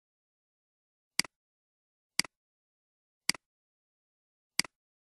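Computer mouse clicks: four single clicks about a second apart, each a quick press-and-release double tick.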